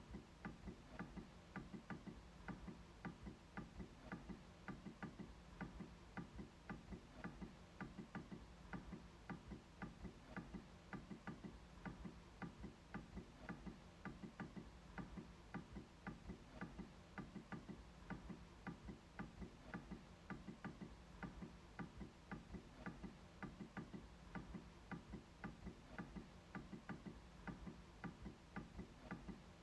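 MacBook trackpad being clicked over and over in a steady quick rhythm, a few faint clicks a second.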